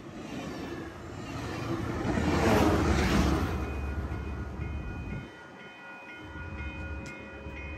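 Metrolink commuter train passing at speed, a rushing rumble of wheels and air that is loudest about two to three seconds in as its diesel locomotive goes by, then fades as the train pulls away. A grade-crossing warning bell rings steadily through the second half.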